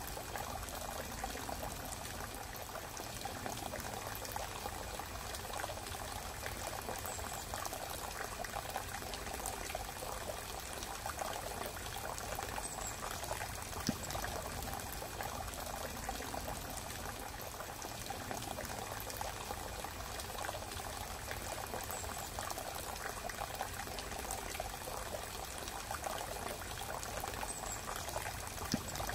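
Steady sound of running, trickling water, even throughout, with a few faint clicks.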